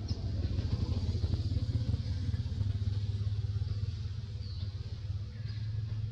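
Low, steady rumble of a motor vehicle engine, with a few faint short high chirps now and then.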